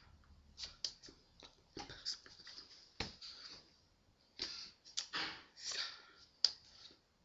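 Faint rustling, brushing and tapping of a person signing: sweater sleeves and hands moving and striking each other, with puffs of breath, and a sharp click about six and a half seconds in.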